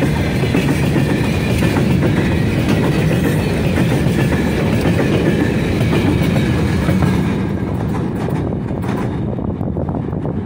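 Freight train's open-top wagons rolling past close by, a loud, dense rumble and rattle of steel wheels on the rails. About two seconds before the end the sound loses its higher, hissing part and falls to a duller, lower rumble.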